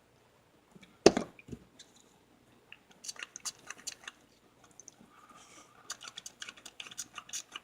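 Hard plastic parts being handled and pressed together: one sharp knock about a second in, then a run of small clicks and crackles.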